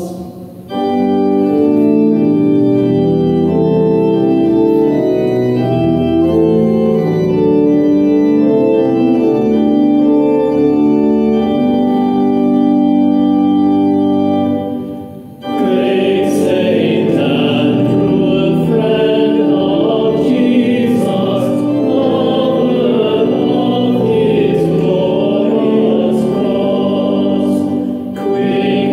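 Church organ playing the introduction to a recessional hymn in steady, held chords. About halfway through it breaks off briefly, and voices begin singing the English hymn with the organ.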